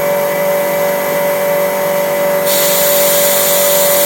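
CNC milling machine running: its stepper motors give a steady whine as an axis travels at constant speed, over a constant motor hiss. The high hiss grows louder about two and a half seconds in.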